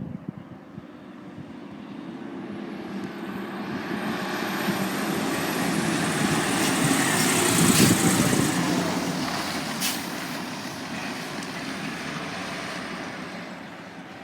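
Fire engine driving past: its engine and road noise build to a peak about eight seconds in, then fade away.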